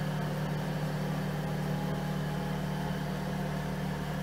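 Steady low hum of a machine running, with no other events.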